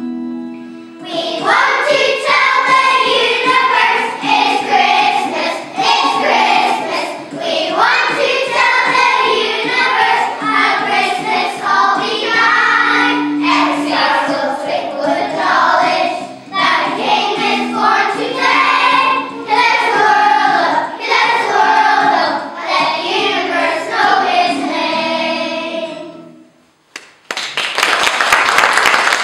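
A group of young children singing a song together, which ends about four fifths of the way through; after a short pause an audience breaks into applause near the end.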